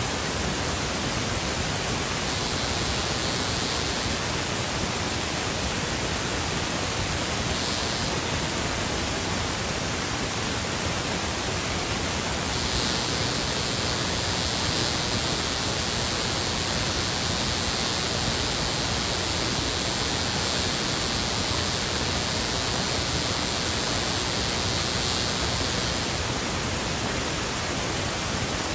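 Steady, even hiss like static, spread evenly from low to high, with no distinct sounds standing out. A sharper high hiss joins it from just before halfway through and drops away near the end.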